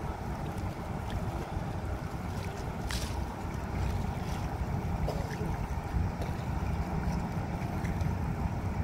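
Wind buffeting the microphone, a steady low rumble, with a few faint ticks and a brief crackle about three seconds in.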